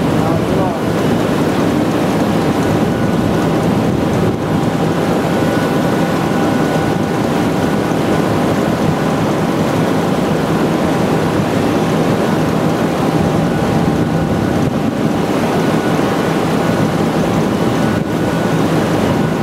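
A steady, loud rushing noise as a tilted steel-mill ladle pours molten metal and throws off showers of sparks. Two faint, steady high hums from plant machinery sit above it.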